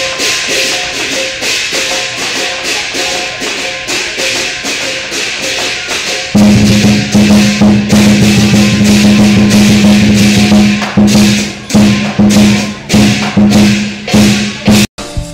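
Lion dance percussion playing: metal cymbals clash in a fast, even beat, and a deep, booming drum joins about six seconds in. The music breaks off abruptly near the end.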